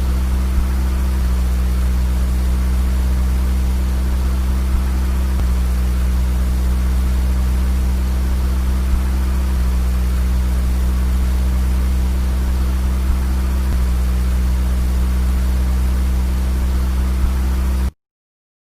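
A car driving at a steady speed: a constant low engine and road drone with no revving or gear changes, cutting off suddenly near the end.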